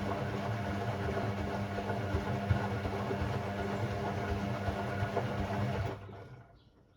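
Hoover Sportswear 1300 AI130 washing machine's drum motor running steadily with a low hum, turning the drum in a short burst of gentle delicate-cycle action, then stopping about six seconds in.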